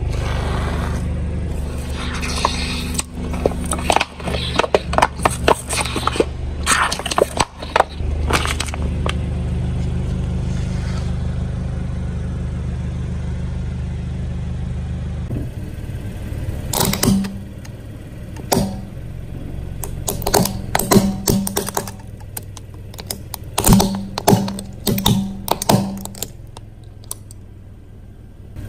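Car engine running with a steady low hum while a tyre rolls over and crushes brittle objects, giving a rapid series of sharp cracks and crunches in two bouts. The engine hum drops away about halfway through.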